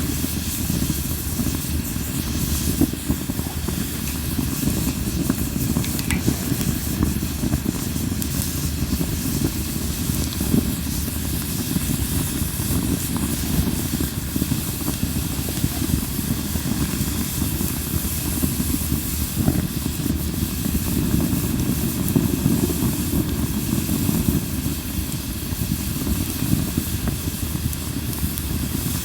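Campfire of Japanese linden wood burning steadily: a continuous low rush of flame with hissing and many small crackles and pops from the burning wood.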